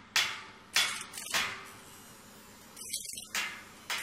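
Sharp cinematic sound-effect hits and whooshes of an animated logo intro, each fading quickly. Three come in the first second and a half, then there is a pause of about two seconds and two more near the end.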